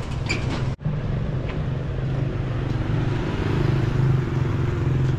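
Moped and motorbike traffic running along a bridge roadway: a steady engine drone that cuts out for an instant just under a second in, then swells a little around the middle.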